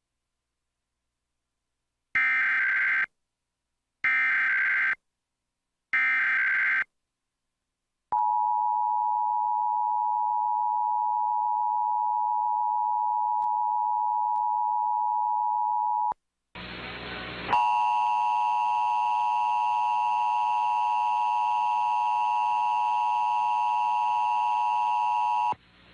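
Emergency Alert System test tones: three one-second buzzy bursts of the SAME digital header, then the two-tone EAS attention signal (853 and 960 Hz) held steady for about eight seconds. After a second of hiss, a second, harsher attention tone with many overtones runs for about eight seconds more and cuts off near the end.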